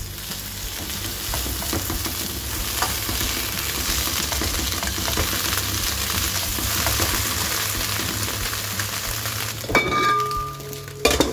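Eggplant pieces sizzling as they fry in oil in a nonstick frying pan, turned over with a metal fork. Near the end come two sharp clinks, the first ringing briefly, as the glass pan lid is handled.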